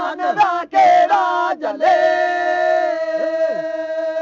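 Male voice singing a Sindhi maulood, a devotional chant. A melodic phrase turns about two seconds in into one long held note, over a steady lower drone note.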